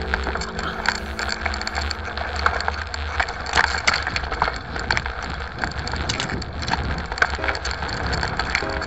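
Bicycle rattling and clicking over a rough trail, with a steady low rumble of wind on the microphone. A couple of short squeaks come near the end.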